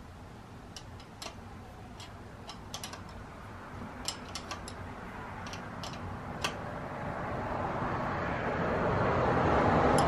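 Light, scattered metal clicks of open-end wrenches working the clutch-cable adjuster nuts as they are tightened. Over the last few seconds a rushing noise swells steadily louder.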